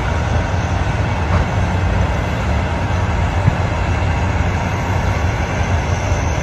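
Heavy machinery at work, the diesel engines of crawler cranes running in a steady low rumble, with one short knock about three and a half seconds in.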